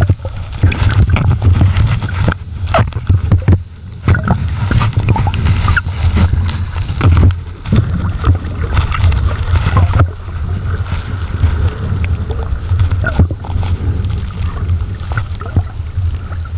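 Underwater noise: a loud low rumble with scattered clicks and knocks, busier in the first ten seconds, then steadier and a little quieter.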